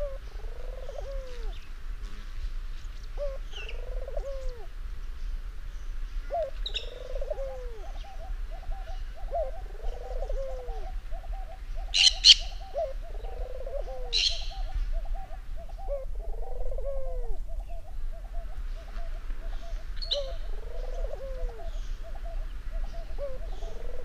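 Barbary (ringneck) dove cooing over and over, a low arching coo about every three seconds, with a fast rolling run of notes between the coos in the middle. A green-cheeked conure gives a few sharp, high squawks, the loudest two about halfway through.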